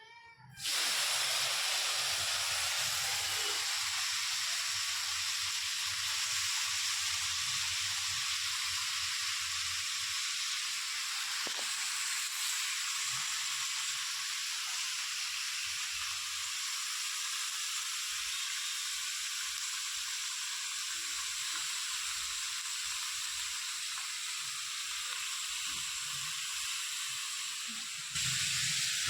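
Food sizzling in hot oil in a pan: a steady frying hiss that starts suddenly about half a second in and keeps up.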